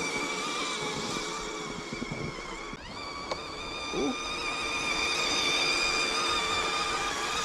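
Electric motor and gear whine of a small RC crawler truck, a steady high buzzing whine with a brief rising glide about three seconds in.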